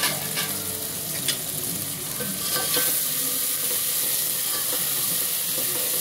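Onion-tomato masala sizzling in oil in an aluminium pot, stirred with a metal ladle that taps and scrapes against the pot a few times in the first half.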